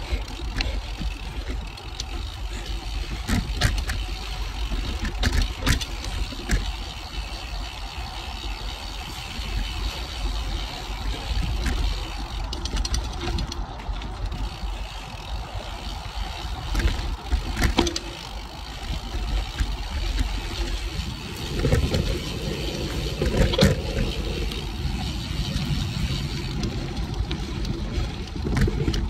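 Cervelo Aspero gravel bike on 47 mm tyres rolling fast down a dirt singletrack: a steady tyre rumble and wind buffeting on the handlebar-mounted microphone, with scattered sharp knocks and rattles as the bike hits roots and rocks. About 22 seconds in, the rumble swells louder for a few seconds.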